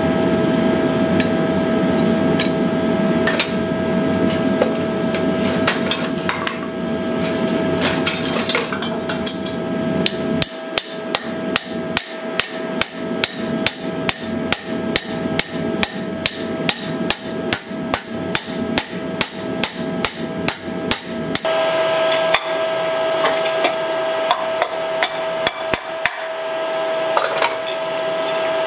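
Smith's hand hammer striking a handled punch on hot iron over an anvil: a few scattered blows, then a quick, steady run of sharp metal strikes at about two to three a second for roughly twelve seconds, then a few more scattered blows.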